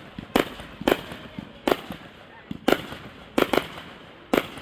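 Fireworks going off: a string of sharp bangs, about seven in four and a half seconds, unevenly spaced.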